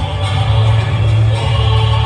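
Music with choral singing over a heavy, steady bass.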